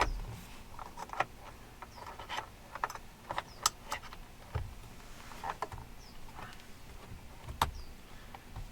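Small irregular clicks and taps of a 2.5 mm Allen wrench poking and scraping in the release holes on the back of a Chevy Silverado steering wheel, feeling for the spring bars that release the airbag. Two of the clicks, about three and a half and seven and a half seconds in, are sharper than the rest.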